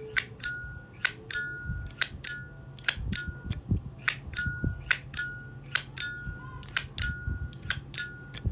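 Windproof flip-top lighter's lid, probably a Zippo, being flicked open and snapped shut over and over: a run of sharp metallic clicks, about two to three a second, each with a brief ringing ping.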